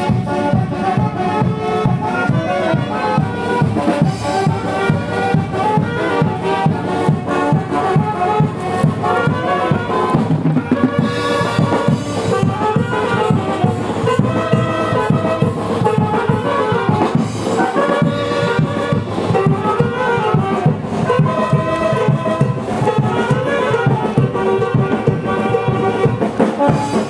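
Brass band music with drums, trumpets and trombones over a steady beat.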